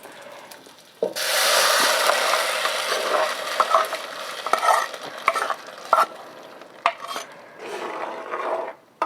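Mashed beans poured into a pan of hot oil and fried onion hit with a sudden loud sizzle about a second in. They go on frying while being stirred, the sizzle slowly fading under scattered knocks of the utensil against the pan.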